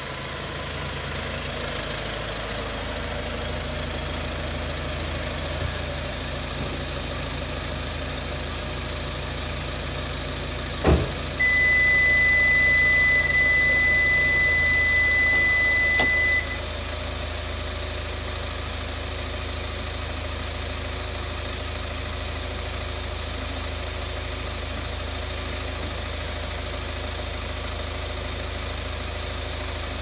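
Car engine idling steadily. About eleven seconds in there is a knock, then a steady high-pitched beep for about five seconds, ending with a click.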